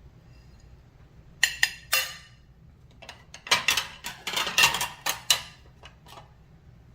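A utensil clinking and scraping against a mixing bowl as shredded cheese is added: a few sharp clinks, then a busy run of clinks and scrapes, tailing off in a few light taps.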